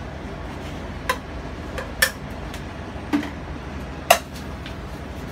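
Several light clinks of a glass pot lid and stainless steel kitchenware being handled and set down, spaced about a second apart, the loudest about four seconds in with a short ring, over a steady low hum.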